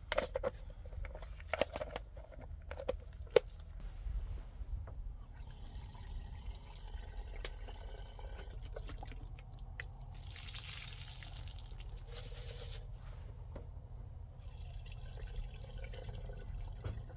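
Water trickling from a plastic jerrycan's tap into a plastic container of rice being washed, running strongest for a couple of seconds about ten seconds in. In the first few seconds there are light knocks and clicks from handling the container.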